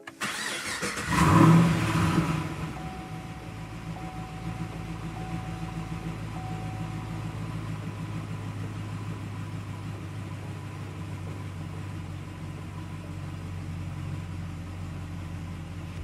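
A 2017 Chevrolet SS's 6.2-litre V8 starting through its stock bimodal exhaust with the valves open. The starter cranks briefly and the engine catches with a loud flare about a second and a half in, then drops to a steady fast idle as it settles, heard at the left rear tailpipe.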